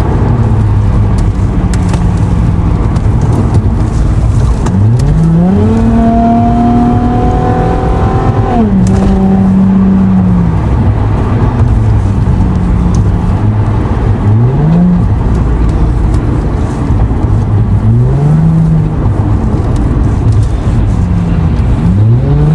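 Sports car engine revving: its pitch climbs steeply about five seconds in and holds high until it drops off near nine seconds, then shorter revs rise again around fourteen, eighteen and twenty-two seconds.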